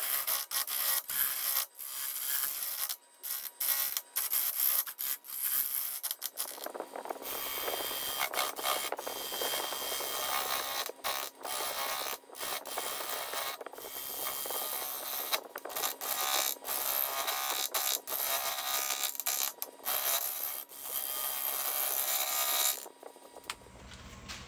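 Wood being worked on a lathe: a tool scraping and rubbing against the wood in stretches broken by many short gaps, with a steady motor hum underneath from about a third of the way in. Near the end the scraping stops and a lower steady hum takes over.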